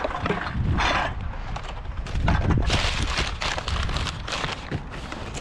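Footsteps on a dry dirt path with a plastic bag rustling, then rubbish being rummaged in a wheelie bin, a paper takeaway bag crinkling near the end.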